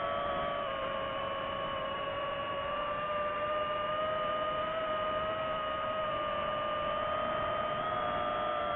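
Quadcopter drone's propellers and motors whining steadily: several close pitches sounding together over a rushing noise, drifting slightly in pitch.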